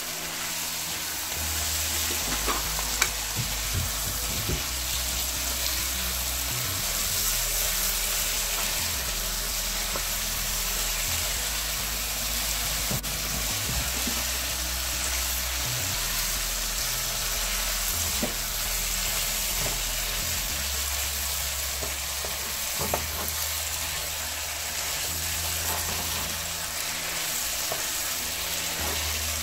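Mixed vegetables sizzling as they fry in oil and spices in a pot, stirred with a wooden spatula, with a few sharp clicks of the spatula against the pot.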